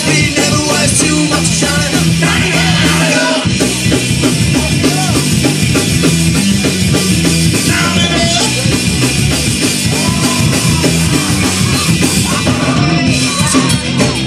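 Punk rock band playing live: electric guitar, bass and drum kit, loud and steady.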